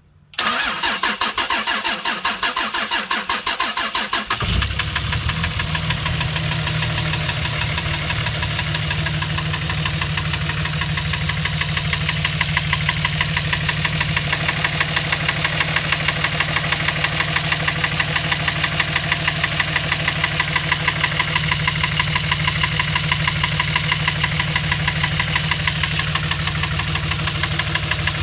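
Dodge Ram engine cranked over by the starter for about four seconds, then catching and running with a steady, regular knock.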